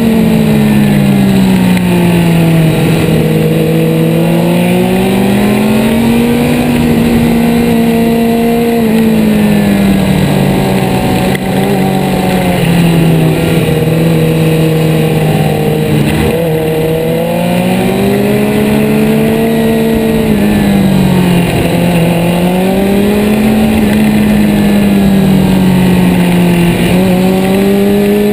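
2011 Suzuki GSX-R600's inline-four engine running at steady mid revs. Its pitch rises and falls slowly several times as the throttle is rolled off and on through a run of corners, over a steady rush of wind and road noise.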